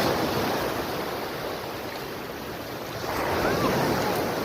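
Sea waves washing onto the beach, a steady rush of surf that swells once at the start and again about three seconds in.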